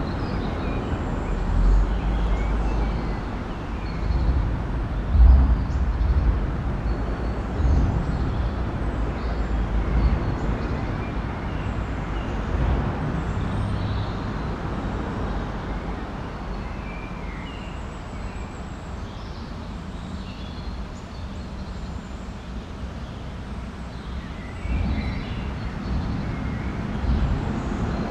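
Ring road traffic crossing a bridge, heard from underneath it: a continuous rumble of tyres and engines with repeated deep thumps. It is busiest in the first ten seconds and again near the end, easing off in between.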